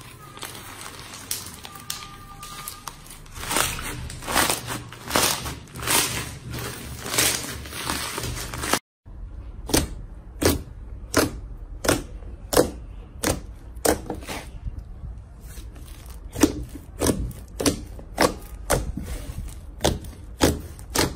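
Slime being kneaded by hand: first a white slime full of foam beads, crackling and popping densely as it is squeezed, then, after a short break, a thick yellow fluffy slime pressed again and again with the fingers, giving regular squishy pops about one and a half a second.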